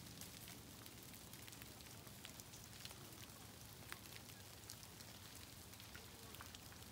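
Near-silent forest ambience: a faint hiss with sparse light ticks and patter, like drips or bits of frost falling from the trees.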